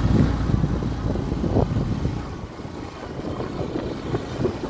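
Motorcycle engine running at low speed with an uneven low rumble, getting quieter over the first couple of seconds.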